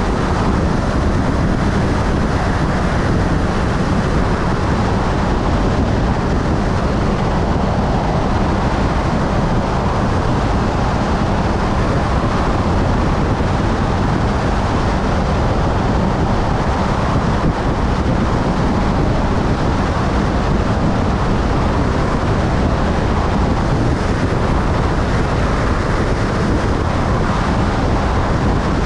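Motorcycle cruising steadily on a highway: wind rushing over the camera microphone, with the engine's steady drone underneath.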